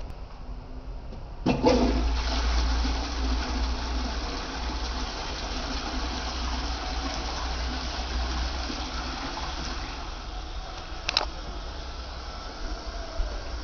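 Caroma Diamond cistern flushing into a Porcher toilet pan: the flush starts suddenly about a second and a half in, and the rushing water is loudest at first, then slowly eases off. A sharp click comes near the end.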